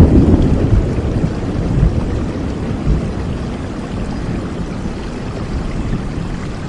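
Steady rain with a low rumble of thunder that slowly dies away over the first few seconds.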